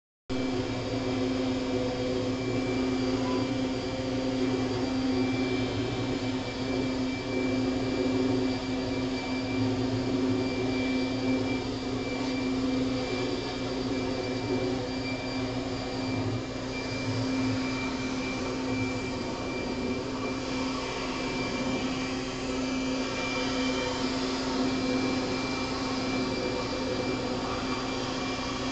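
Corded electric leaf blower running continuously, a steady motor hum with a high whine over the rush of air.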